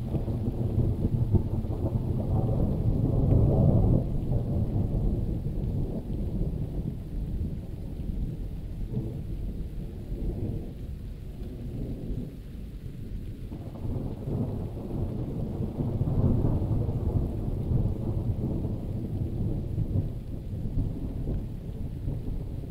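Rolling thunder of a thunderstorm, a deep continuous rumble that swells about three seconds in and again past the middle, over falling rain.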